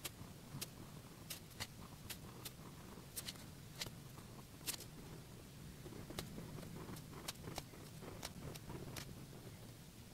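Felt-tip pen (Monami Plus Pen 3000) drawing on paper: faint irregular small sharp ticks, about two a second, over a low steady hum.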